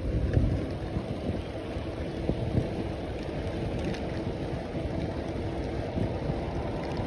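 Wind rumbling and buffeting over the microphone of a phone carried on a moving bicycle: a steady low rush with no distinct events.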